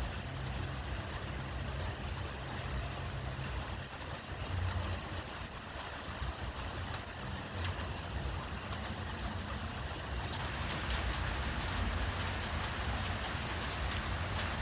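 Rain falling steadily over a low rumble, growing heavier about ten seconds in, with scattered drops ticking close by.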